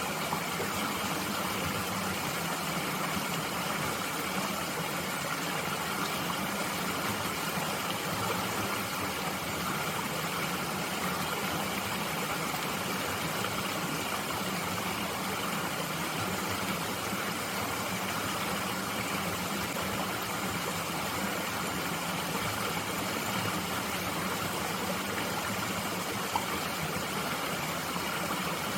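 A mountain stream flowing, a steady, unbroken water noise with no separate events.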